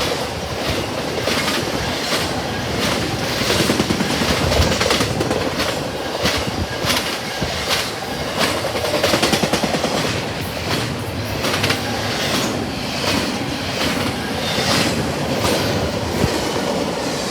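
Intermodal freight train rolling past at close range: a steady rumble of cars with wheels clacking over rail joints in quick, irregular clusters.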